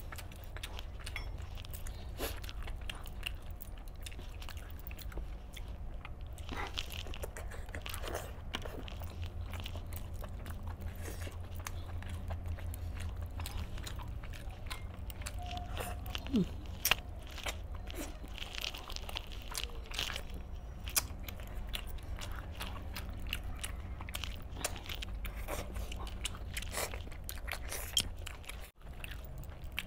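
Close-up eating of green masala chicken by hand: chewing, biting and tearing meat off the bones, with many short crunches and snaps. A few louder snaps stand out in the middle and near the end, over a low steady hum.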